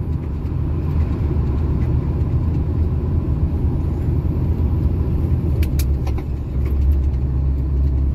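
Truck on the move: a steady low engine drone and road rumble, with a few light clicks about five and a half to six seconds in. The low drone grows stronger about six and a half seconds in.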